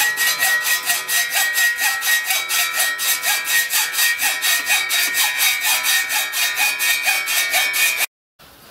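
Hand hacksaw cutting through metal angle clamped in a vice: fast, even back-and-forth strokes with a steady high metallic ring. The sawing stops abruptly near the end.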